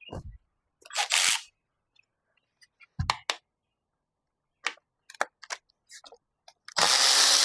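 Tools being picked up and handled: scattered sharp clicks and knocks, a short rushing burst about a second in, and a louder one lasting about a second near the end.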